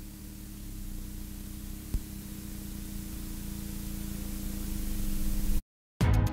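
Steady rushing noise with a low hum, slowly growing louder, then cut off by a brief silence; music starts just before the end.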